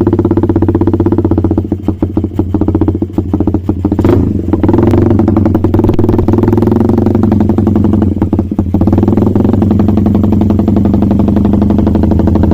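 Suzuki Satria FU's single-cylinder four-stroke engine, fitted with a PE28 carburettor, running steadily while the carburettor is being set up. The engine note wavers unevenly around two to four seconds in and again around eight to nine seconds.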